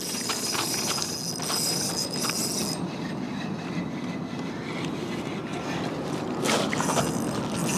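Spinning reel being cranked, its gears whirring with fine ticks for about the first three seconds and then stopping, over a steady low wash of water and wind. A brief rush comes about six and a half seconds in.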